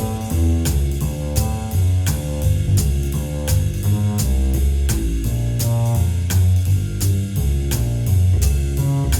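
Background music: an upbeat instrumental with a steady drum-kit beat, bass and guitar.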